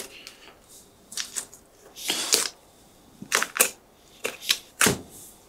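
Raw turkey being jointed by hand and knife on a plastic cutting board: short, irregular crackles and snaps of skin, flesh and joints parting, in clusters about a second apart.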